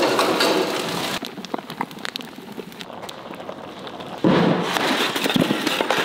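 Molten metal pouring from a tilted foundry ladle, crackling and spattering as sparks fly. About four seconds in, a louder stretch of dense rushing noise cuts in abruptly.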